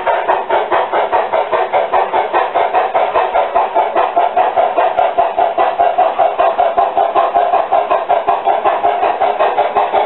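Recorded steam sound from an ESU sound decoder in a model C-16 2-8-0 steam locomotive: rapid, even exhaust chuffs played through the model's small speaker, thin and with no bass.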